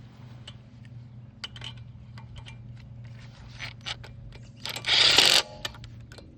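Light metallic clicks of bolts and tools being handled, then about five seconds in a power tool runs in one short burst, driving a brake caliper bolt home.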